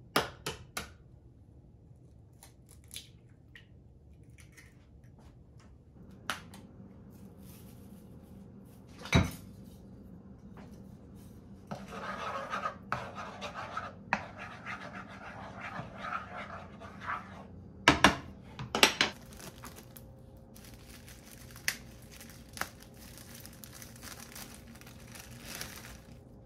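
Kitchen handling sounds: scattered sharp clinks and knocks of dishes and utensils, the loudest about nine seconds in and twice around eighteen seconds, with stretches of rustling, scraping noise between them.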